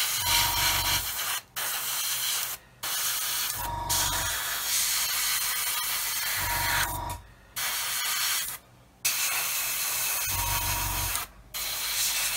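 Airbrush spraying model paint: a steady hiss of air and paint that cuts off briefly several times between passes as the trigger is released.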